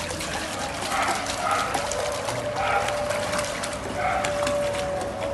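A dog giving several short, high whines, with scattered small clicks.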